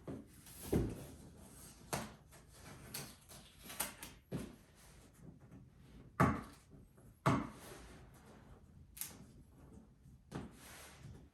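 Cardboard shipping box being handled while sticky packing tape is pulled at: a string of irregular knocks, scrapes and rustles.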